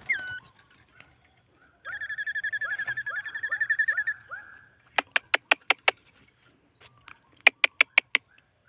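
Small bird calling: a short downward-sliding note, then a rapid trill of repeated notes lasting about two seconds, followed by two quick runs of sharp, clicking notes.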